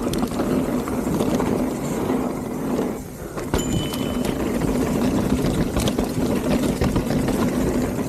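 Mountain bike descending a dirt trail at speed: wind rushing over the microphone along with tyre rumble on the dirt and scattered rattles and clicks from the bike. A brief high squeak about three and a half seconds in.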